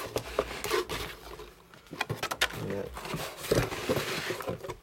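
Package being opened by hand: packaging rustling and crinkling, with scattered sharp clicks and knocks. A brief low humming sound comes a little past the middle.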